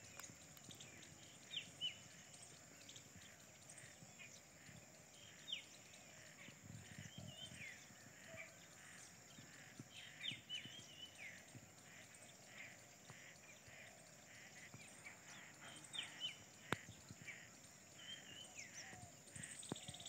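Faint chirping of small birds: many short chirps, some sliding down in pitch, scattered throughout, over a steady high-pitched hum, with one sharp click late on.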